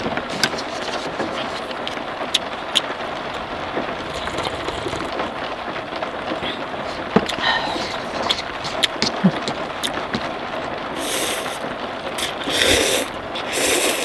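Steady rain on the car's roof, heard from inside the car, with scattered sharp drop ticks. In the last few seconds, cup noodles are slurped several times.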